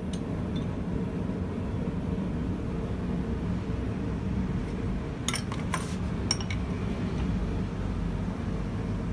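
A few light metal clinks, about five to six seconds in, as steel bar and tools knock against a bench vise holding a red-hot coiled bar being bent. Under them a steady low hum runs throughout.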